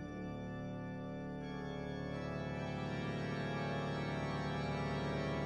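Background music: a single held organ chord that comes in suddenly and slowly grows louder.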